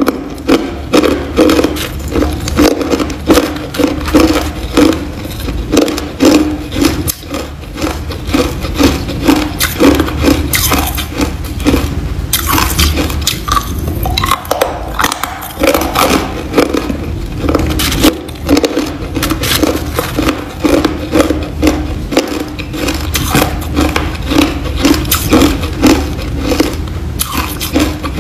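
Chunks of hard clear ice being bitten and chewed, a steady run of cracking crunches in an even chewing rhythm of about two a second.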